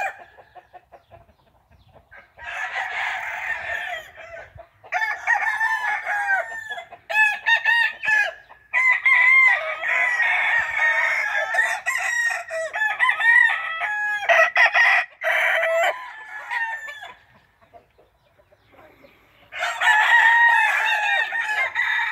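A spangled Walter Hall Mug gamefowl rooster crowing over and over, with clucking and further crowing from chickens around it. Crows come about two seconds in, then in a long busy run in the middle, and again near the end, with short quiet gaps between.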